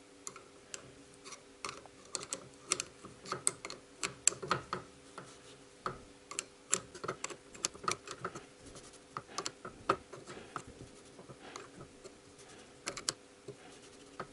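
Irregular small metallic clicks and ticks as a piston ring compressor band is tightened a little at a time with a 10 mm wrench around a piston. The band is worked by hand in between to feel for a snug but still sliding fit.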